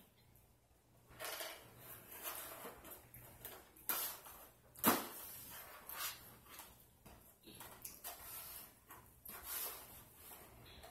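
Irregular mouth sounds of eating, chewing and smacking, with two sharp knocks about four and five seconds in.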